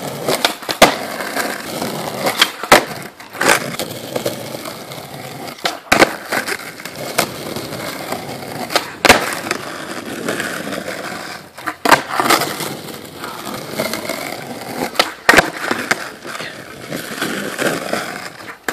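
Skateboard wheels rolling over a concrete driveway, broken about a dozen times at irregular intervals by sharp clacks of the board hitting the concrete as the skater warms up and attempts tricks.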